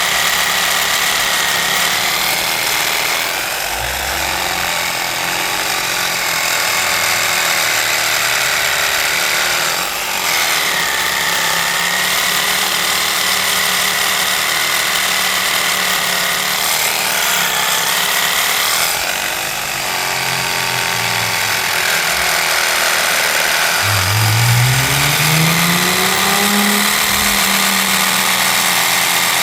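Reciprocating saw (sawzall) with a cast-iron blade cutting through a cast iron sewer cleanout pipe: a continuous loud grinding saw noise with a wavering high whine, easing off briefly a few times, and the motor pitch rising about 24 seconds in.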